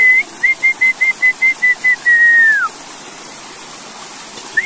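A person whistling to call a dog: a held note, then a quick run of short repeated whistles, then a long note that drops away at the end.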